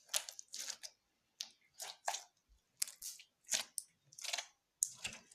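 Clear-glue slime with confetti being squished and worked by hand: short, irregular squelches, about two or three a second.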